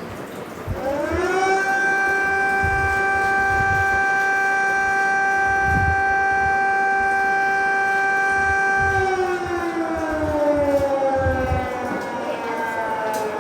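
Outdoor warning siren winding up about a second in, holding one steady wailing tone, then slowly winding down from about nine seconds in. Short low rumbles sound underneath it throughout.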